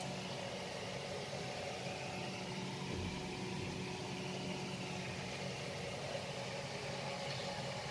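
Steady low hum of room tone, with several unchanging tones and no distinct events.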